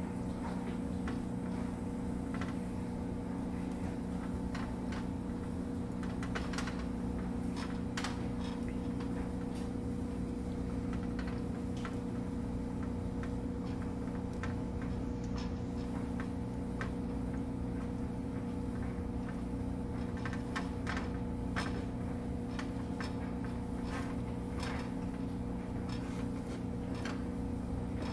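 Metal tongs clicking and tapping against a wire rack as chicken wings are turned, in scattered light clicks that bunch up about a quarter of the way in and again past the middle, over a steady low hum.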